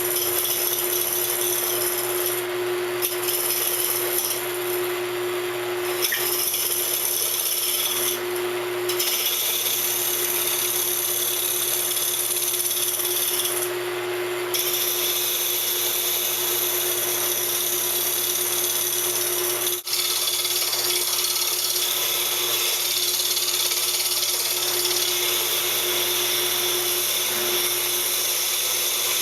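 Wood lathe running with a steady hum while a round-nose scraper cuts a spinning hardwood blank, giving a continuous hissing scrape. The sound drops out briefly about twenty seconds in.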